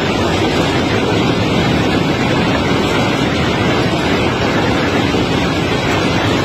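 Heavy unloading machinery running: a loud, even rumble with no distinct knocks or impacts.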